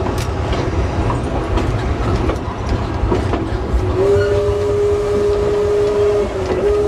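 Ride noise of a 3 ft gauge steam train: a steady low rumble with wheel clatter. About four seconds in, the locomotive's steam whistle is blown in a long steady note, dipping briefly and sounding again near the end.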